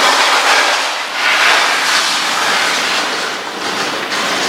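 Davis ProPet pet washer running, spraying water with a little shampoo through its nozzle onto a small dog's wet coat: a steady, loud hiss of spray.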